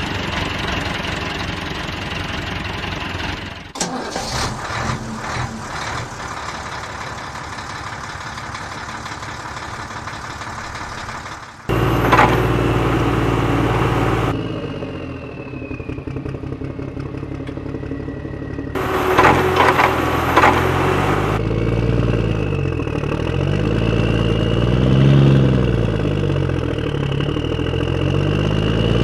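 Vehicle engine sounds: a steady running engine, cut by two loud hissing bursts of a couple of seconds each, then revving that rises and falls in pitch over the last several seconds.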